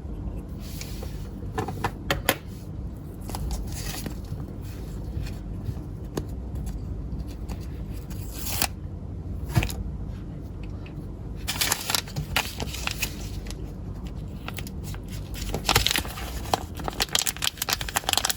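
Slime being handled, making irregular sticky crackles and clicks that come in thicker runs about halfway through and near the end, over a steady low hum.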